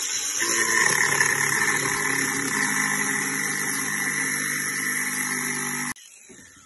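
Cordless angle grinder running at full speed and grinding a metal part clamped in locking pliers, throwing sparks: a steady high whine with a gritty grinding edge. The grinding stops abruptly near the end and the motor winds down.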